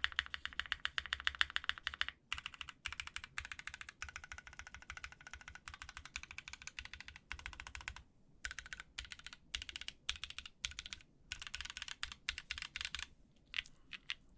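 Typing on a custom mechanical keyboard with lubed Gazzew Boba LT linear switches on a polycarbonate plate with GMK keycaps: fast runs of deep keystrokes broken by brief pauses, with the heavier clack of the spacebar now and then.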